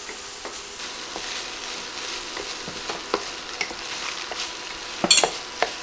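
Wooden spatula stirring and scraping a sizzling filling of onion, peppers, bacon and cream cheese around a hot nonstick skillet, with the cream cheese melting in. A steady sizzle runs under scattered small scrapes and taps, and a short, loud clatter comes about five seconds in.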